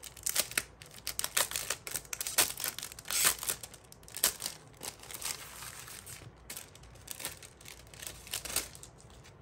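Clear plastic sleeve crinkling and rustling as sticker sheets are slid out of it, in irregular sharp crackles.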